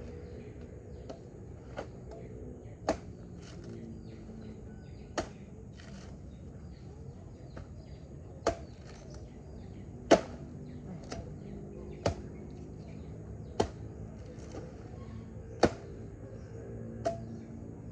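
A blade chopping into a young coconut: about eight sharp strikes a second and a half to three seconds apart, the loudest about ten seconds in. Birds chirp faintly behind.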